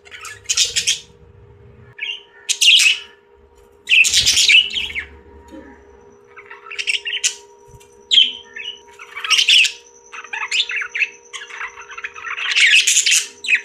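Pet parrots squawking and chirping in harsh, scratchy calls that come every second or two, over a faint steady electrical hum.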